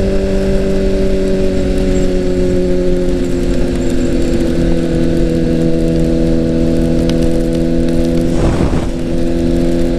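Honda CBR1000RR sport bike's inline-four engine running at a steady cruise under the rider, its pitch easing slightly lower in the first few seconds and then holding steady, over a steady rush of wind. A brief whoosh comes near the end.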